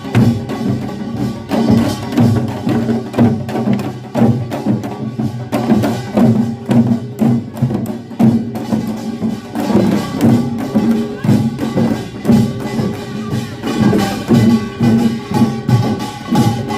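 Korean pungmul farmers' band playing: drums and gongs struck in a fast, steady rhythm, with ringing gong tones held over the beat.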